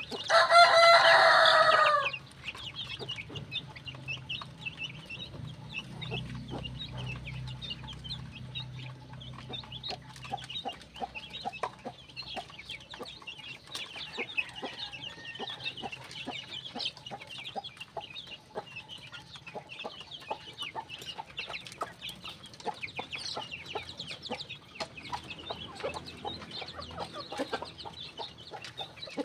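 A flock of chickens, Cobb broilers and native birds: one loud crow in the first two seconds, then constant clucking and high chirping from many birds.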